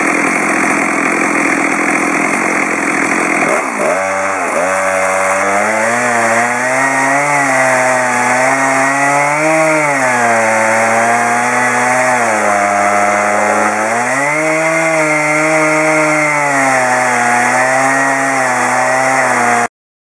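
Two-stroke chainsaw cutting pine lengthwise into boards at high revs: a rough, dense buzz at first, then from about four seconds in a clear engine note that rises and falls as the load on the chain changes. The sound cuts off abruptly near the end.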